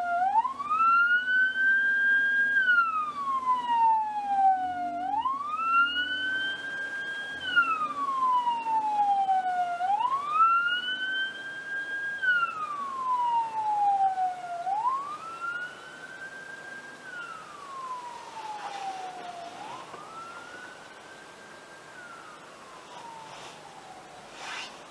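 Ambulance siren wailing, each cycle rising, holding briefly and falling, about every five seconds, fading away over the second half.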